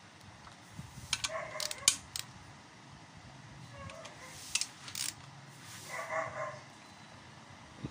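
Socket wrench and extension clicking and tapping against the oil pump bolts of a Nissan MR18 engine as they are tightened: irregular sharp metal clicks in two clusters, about a second in and again near the middle. A dog barks a few times in the background, the last and loudest bark near the end.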